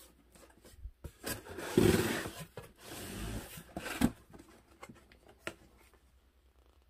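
Cardboard and paper scraping and rustling as a hand rummages in a cardboard box and slides a glossy paper catalogue out. The loudest scrape comes about two seconds in and a second about three seconds in, with a couple of sharp knocks after. It goes quiet near the end.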